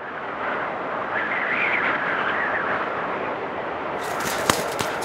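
Logo-intro sound effect: a steady rushing noise that swells a little over the first couple of seconds. From about four seconds in, a scatter of sharp, crisp clicks comes in, with one louder click about half a second later.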